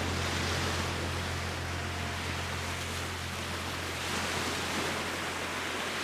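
Small waves washing onto a sandy beach: a steady, even rushing of surf, over a constant low hum.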